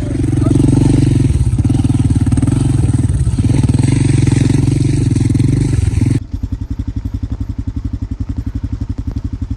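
Motorcycle engine running hard on a slippery trail, with a rushing noise over it; about six seconds in the sound changes abruptly to a steadier, evenly pulsing engine note, as at low revs.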